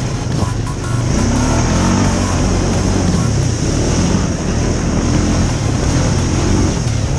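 ATV engine running under load on a rough dirt trail, revving up about a second in and again near the end.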